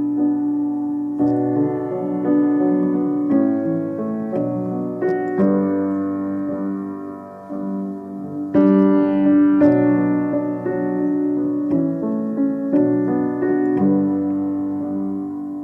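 Piano playing slow, held chords that change about once a second, with a louder stretch beginning a little past the middle. No singing.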